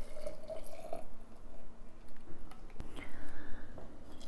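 Warm sugar water being poured into a glass jar of dried herbs, its pitch rising slightly as the jar fills, followed by a few light knocks of the jar and utensils.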